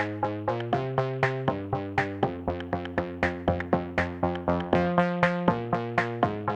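Background electronic music: quick, evenly spaced synth notes, about four a second, over sustained chords that change every second or so.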